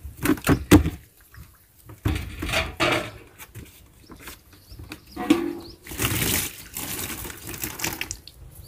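Water scooped from a large clay water jar with a plastic dipper and poured out, splashing, after a few sharp knocks in the first second.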